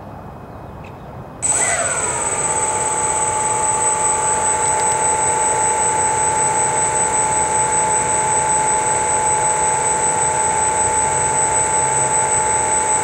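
The radio-controlled model flying boat's four electric motors and propellers start together about a second and a half in. Their pitch slides down and settles into a steady high whine at idle throttle.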